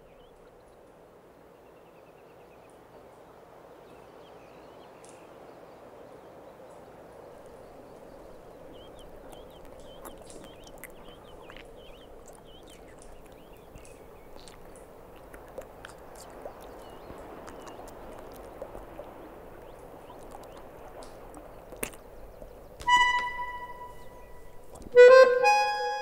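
Soft background music: a faint, steady hazy pad with a few scattered ticks, then near the end a few loud held notes come in.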